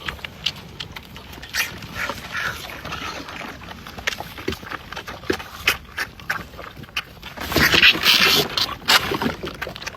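Young farm animals moving about and snuffling at close range: many quick clicks and scuffles, busiest and loudest from about seven and a half to nine seconds in.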